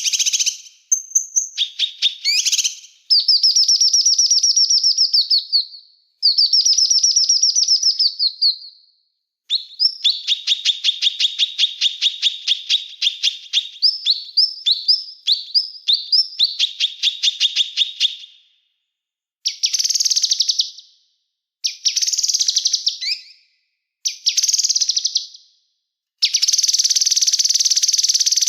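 Small songbird singing fast, high trills and chattering runs of notes in phrases a few seconds long with short pauses between, including one long trill of about nine seconds in the middle.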